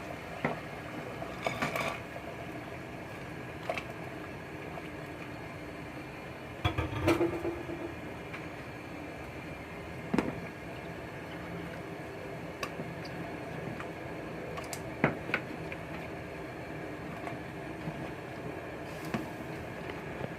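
Fruit and dried herbal ingredients being put into a pot of boiling water, with scattered clinks and knocks of bowl and utensils against the pot over a steady background of the boil. A louder clatter comes about seven seconds in.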